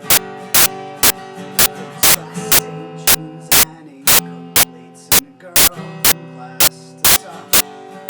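Acoustic guitar strummed in an instrumental passage of a song, steady chords with sharp strums at about two a second.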